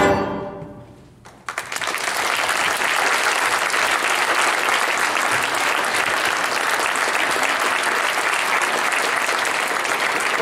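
A school concert band's final chord rings and dies away in an echoing gym, then audience applause breaks out about a second and a half in and carries on steadily.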